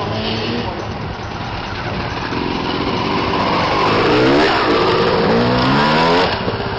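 Enduro motorcycle engine accelerating across the lot, its pitch climbing twice as it revs and gets louder, over a steady hum of other engines running. The engine sound cuts off suddenly near the end.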